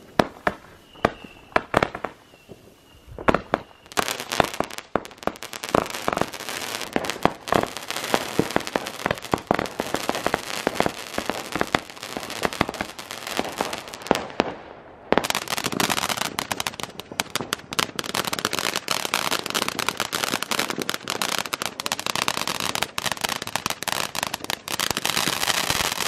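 Fireworks going off. A few sharp bangs and a faint thin whistle come first. From about four seconds in there is dense crackling of many rapid pops, which grows louder and thicker about halfway through.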